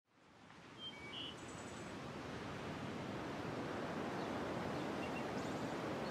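Ambient rushing noise fading in from silence over the first two seconds, then holding steady. A few faint, short high chirps sound about a second in and again near the end.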